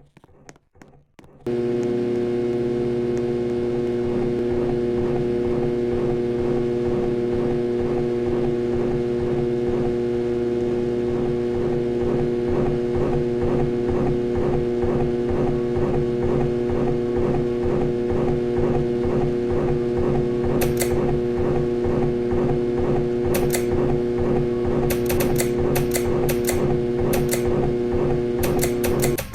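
Harbor Breeze Ocracoke ceiling fan motor running with a loud electrical hum and a regular pulsing, the sign of a bad motor. The hum starts abruptly about a second and a half in, and a few sharp ticks come near the end.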